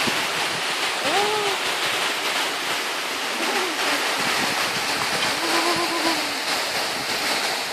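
Small mountain waterfall cascading down a rock face: a steady rush of falling and splashing water close by. Faint voices come through it a few times.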